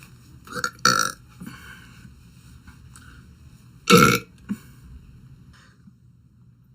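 A young woman burping, two short loud burps: one about a second in and a louder one about four seconds in.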